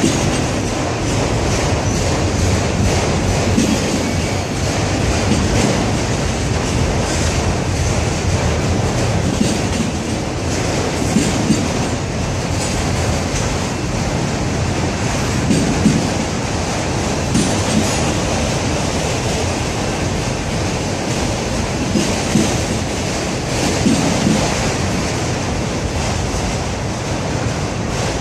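Freight train of autorack cars rolling past: a steady rumble of steel wheels on rail, with occasional short clicks and bangs.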